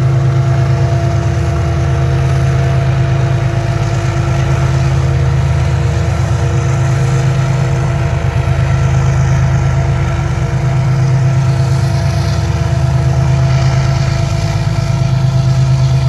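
Diesel-electric freight locomotives running under power as the train passes, a steady low engine drone with a constant hum.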